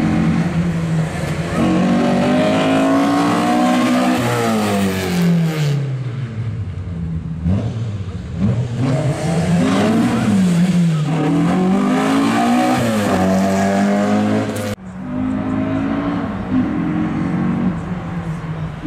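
Opel Kadett C Caravan's four-cylinder engine being driven hard through a slalom: it revs up and drops back again and again, its pitch rising and falling several times. About fifteen seconds in the sound cuts abruptly to a steadier, lower engine note.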